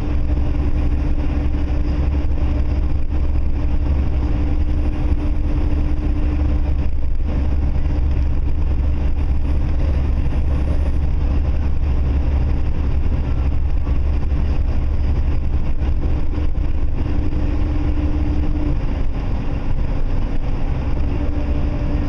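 Steady low rumble of road and engine noise heard from inside a moving vehicle at highway speed, with a faint steady hum that fades about six seconds in and comes back briefly near the end.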